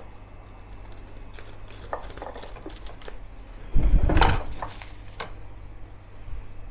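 Small clicks and clinks of scissors and thread being handled on a countertop, with cling film wrapped around sausage meat. One louder thump and rustle comes about four seconds in.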